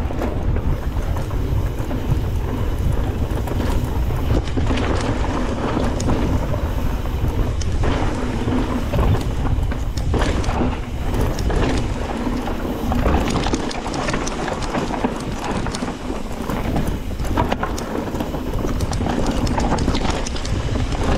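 Mountain bike descending a dirt trail, heard from a handlebar-mounted camera: a steady low rumble of wind buffeting the microphone, with constant clattering and rattling as the bike runs over roots and bumps.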